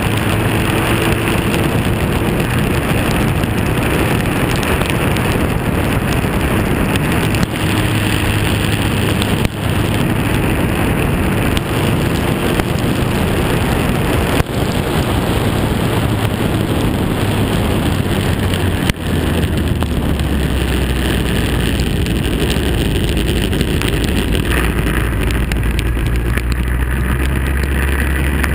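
Lotus 61 Formula Ford's four-cylinder engine running hard at racing speed, heard from an onboard camera mic under heavy wind rush and tyre spray hiss on a soaking wet track. The engine note shifts in pitch, and the level drops briefly four or five times.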